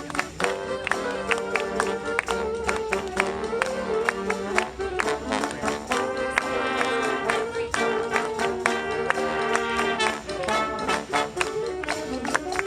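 Live marching band playing: brass horns carry the tune over a steady beat of drum strikes.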